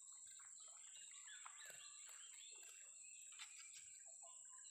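Faint marsh ambience: a steady high-pitched insect drone with scattered short bird chirps.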